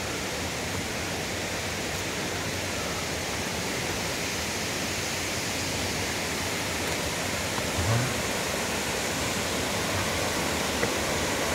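Steady rush of a waterfall's falling water, growing a little louder. A brief low thump comes about eight seconds in.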